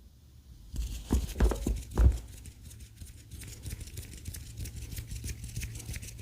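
Hand sounds close to the microphone: a few soft thumps between one and two seconds in, then a quick run of light crackly tapping and rubbing.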